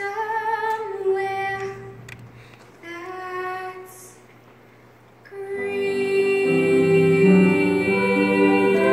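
A woman singing a slow stage ballad with vibrato, two short phrases over soft accompaniment. About five seconds in, the accompaniment swells into loud, held chords.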